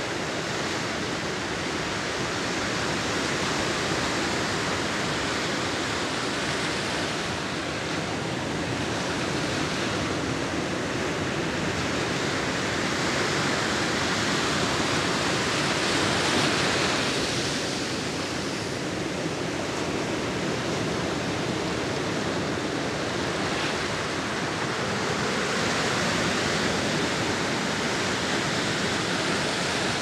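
Large ocean waves crashing against the shore: a continuous wash of surf that swells and eases, loudest about halfway through.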